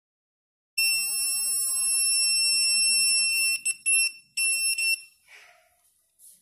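KAXYUYA K88 RF detector's buzzer sounding a steady high-pitched alarm tone as it picks up a wireless router's signal. It starts almost a second in, breaks into a few short beeps after about three and a half seconds, and stops about five seconds in.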